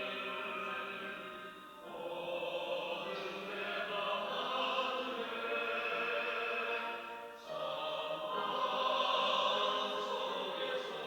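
Church choir singing a Sunday anthem in long held phrases, with short breaks where new phrases begin about two seconds in and again just past seven seconds.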